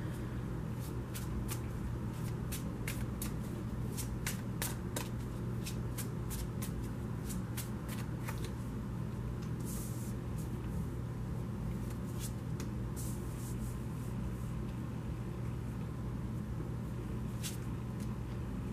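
A deck of tarot cards being shuffled by hand: a run of crisp, quick card clicks through the first half. Later come a few soft swishes as cards are slid out and laid down on a cloth-covered table, all over a steady low hum.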